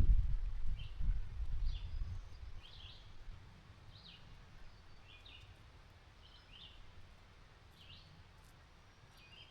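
A bird calling with short high chirps, about one a second, over a quiet woodland background. A low rumble fades out over the first two seconds.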